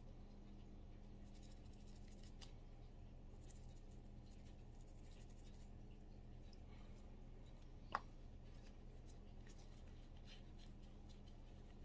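Faint scratching of a small bristle cleaning brush scrubbing a small pistol part, in two spells, over a low steady hum. A single sharp click about eight seconds in.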